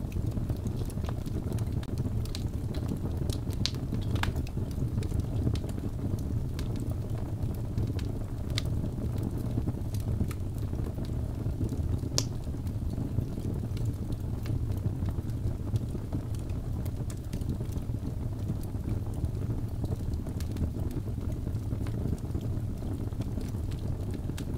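Wood fire burning in a fireplace: a steady low rumble of the flames with scattered sharp crackles and pops of the burning logs, a few louder ones about 3.5, 4 and 12 seconds in.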